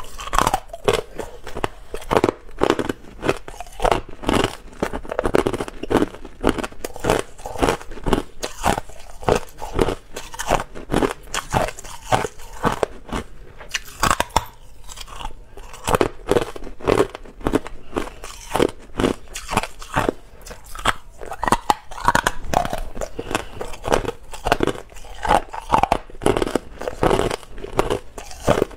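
Clear hard ice being bitten and chewed close to a lapel microphone: a rapid run of sharp crunches and cracks, several a second, thinning briefly about halfway as a new piece is taken.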